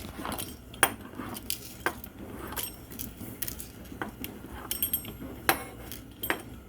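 Kitchen utensils clinking and knocking against a dish and cutting board while tortillas are cut and laid out: scattered sharp taps and clinks, a few louder knocks spread through the clip.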